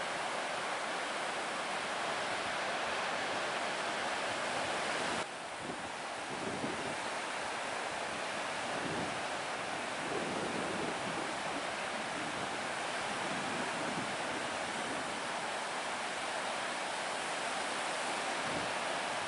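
Ocean surf breaking and washing in a steady roar of white noise, with gusts of wind rumbling on the microphone. About five seconds in the sound cuts abruptly and resumes slightly quieter.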